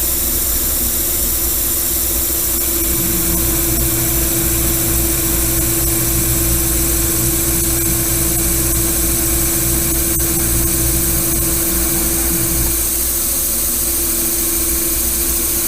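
Metal lathe running under a heavy cut, an insert tool turning a steel die and throwing hot chips. A steady machine hum runs throughout, with a heavier low rumble added from about three seconds in until near the end.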